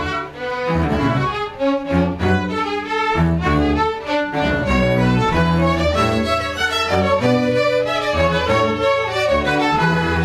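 String ensemble playing: violins and cellos bowing sustained notes over a moving bass line.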